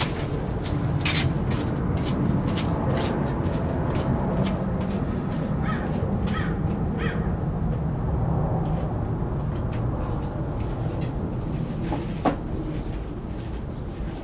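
Hand tools clinking and knocking as they are handled, over a steady low rumble. A bird calls three times about six seconds in, and a single louder knock comes near the end.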